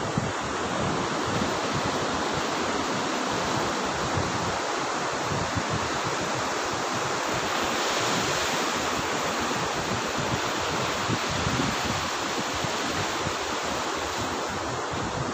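Bay of Bengal surf breaking and washing up a sandy beach, a steady wash that swells a little about halfway through, with wind rumbling on the microphone.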